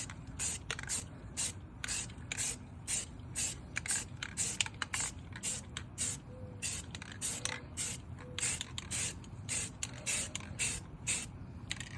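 Aerosol spray-paint can sprayed in short hissing bursts, about two or three a second, laying a first coat of paint on a wheel rim.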